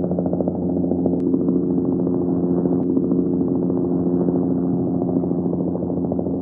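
Helicopter running steadily: a rapid, even beating over a steady engine hum, with no rise or fall in pitch or level.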